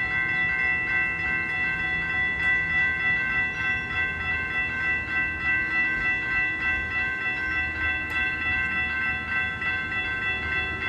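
Railroad crossing warning bell ringing continuously, its rapid strikes merging into a steady metallic ringing with a pulsing beat, over a low rumble.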